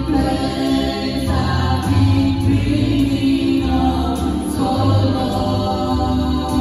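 A small vocal group of four singing a gospel song together into handheld microphones, holding long notes without a break.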